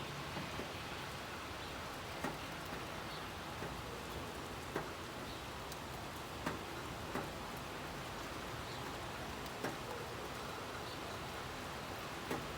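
Steady rain hiss, with single raindrops ticking sharply every second or two.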